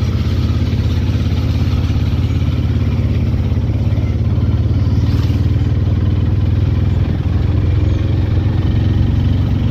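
Auto-rickshaw engine running steadily at cruising speed, heard from inside the passenger cab.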